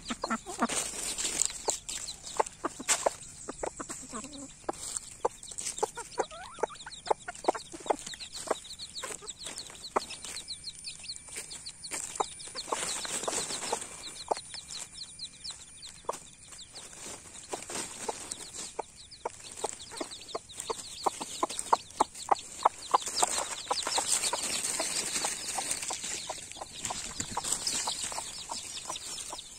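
Mother hen clucking in quick short calls while her young chicks peep in high little chirps.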